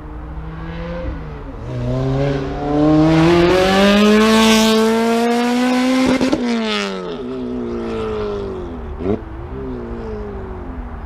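Supercharged four-cylinder engine of a Lotus Exige S2 with a custom valved exhaust set wide open, accelerating hard past: very loud, its pitch climbs steadily for about four seconds, then drops sharply as the car goes by and fades away. There is a brief sharp crack about three-quarters of the way through.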